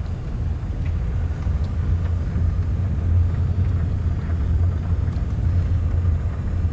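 Steady low rumble of a car driving slowly, heard from inside the cabin: engine and road noise.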